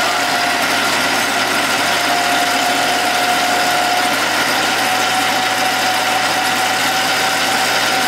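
Cable-yarding yarder's engine running steadily, with a steady high whine running through it.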